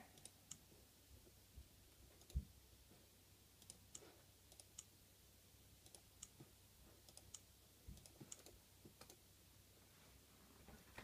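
Near silence broken by faint, irregular clicks of input buttons being pressed to step through on-screen menus, with one soft thump about two and a half seconds in.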